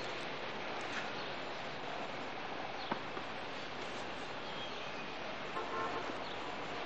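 Steady outdoor background hiss with a few faint small clicks.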